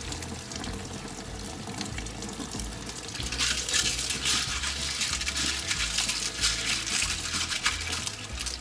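Kitchen faucet running into a sink, pouring through a mesh strainer of tumbled stones to rinse off the tumbling grit. About three seconds in, the splashing gets louder and brighter as the stones are stirred by hand in the strainer, with small clicks of stone against stone.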